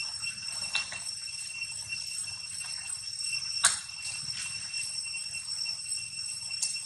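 A steady high-pitched whine with overtones, and a single sharp click a little past halfway.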